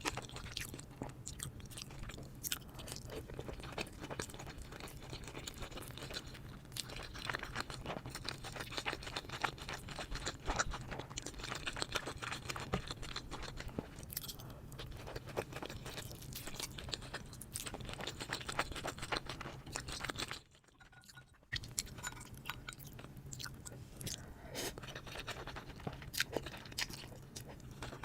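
Close-miked eating sounds: steady chewing with crunching and small wet mouth clicks, over a low, steady hum. The sound drops out for about a second partway through, then resumes.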